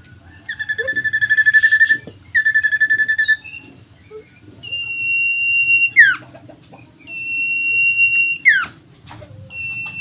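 Common iora (cipoh) singing: two fast rattling trills, then two long drawn-out steady whistles that each end in a quick downward slur, and a short whistle near the end.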